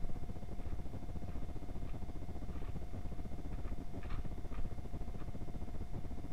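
Muffled low rumble and hiss with a thin steady whine: the action camera's own recording noise and handling sounds rather than clear outdoor sound, with a few faint scattered ticks.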